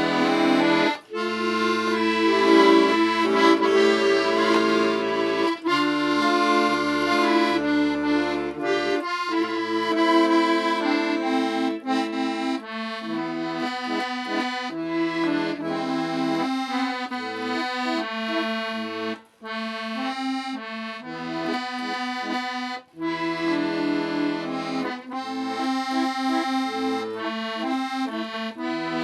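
Accordion playing a melody by ear over low bass notes and held chords, with a few brief breaks in the sound.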